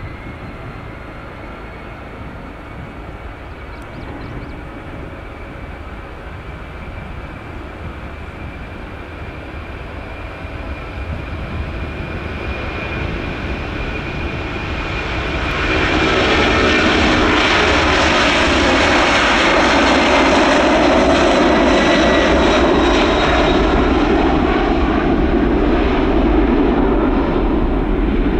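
Boeing 767-200 freighter's twin jet engines at takeoff thrust during the takeoff roll and climb-out: a whining hum that grows steadily louder, then turns into a loud, full roar about halfway through as the jet passes and lifts off, staying loud.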